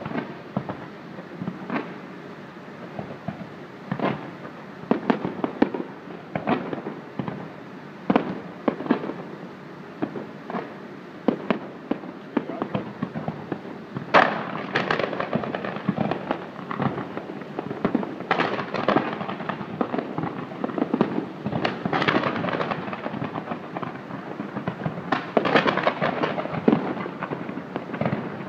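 Fireworks display going off: separate bangs every second or so, turning about halfway through into a denser, near-continuous barrage of bangs and crackling.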